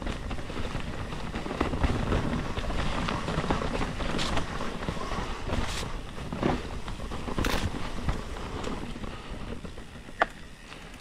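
Commencal Meta mountain bike rolling down a rocky trail: tyre rumble with scattered knocks and rattles as it rides over rocks, and one sharp click about ten seconds in.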